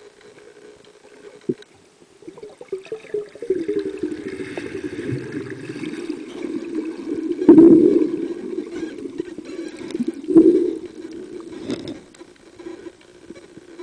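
Muffled underwater sound of water moving and gurgling around the camera, with a few louder dull swells and knocks as the diver moves.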